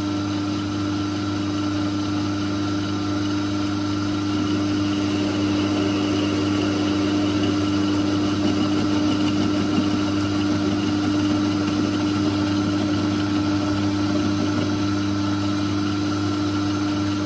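Myford lathe running, its electric motor and drive giving a steady hum while the tool takes a cut along a bolt held in the chuck. The sound gets slightly louder about four seconds in.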